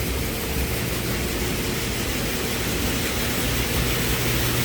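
Rice combine harvester running steadily: a constant mechanical hum under an even rushing noise.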